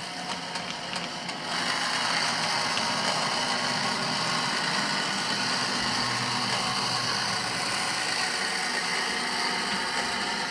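Sound decoder in an OO-gauge Dapol class 121/122 model railcar playing a recorded diesel railcar engine, heard through the model's small speaker. It runs steadily and gets louder about a second and a half in.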